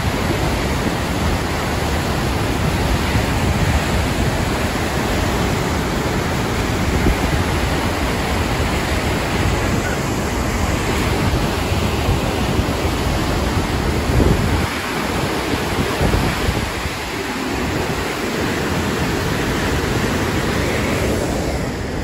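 Steady loud rushing of a large mountain waterfall, white water pouring down a rocky gorge, with wind rumbling on the microphone.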